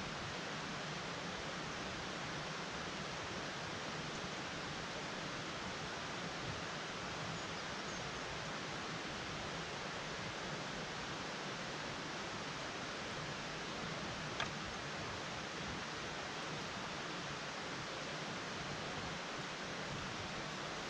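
Steady rushing of a river flowing past, an even noise with no rhythm, and one brief faint click about two-thirds of the way through.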